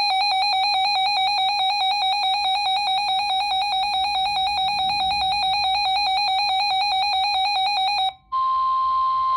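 A RadioShack weather radio's built-in alert alarm, a loud buzzy tone warbling rapidly up and down, sounding for a new severe thunderstorm warning. About eight seconds in it cuts off, and after a brief gap a steady 1050 Hz NOAA Weather Radio warning tone comes through.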